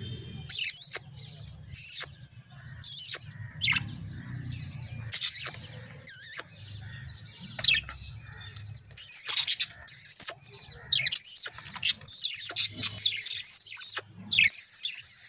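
Pet budgerigars chirping in short, sharp, high calls, scattered at first and coming thick and fast in the last several seconds.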